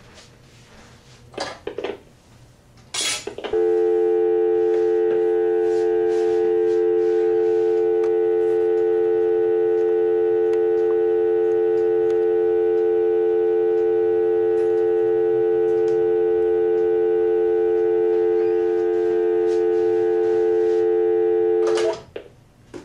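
Telephone dial tone on the Western Electric 50G payphone's line: a loud, perfectly steady two-pitch hum lasting about eighteen seconds. A couple of sharp clicks come just before it starts. It cuts off abruptly near the end with a few more clicks.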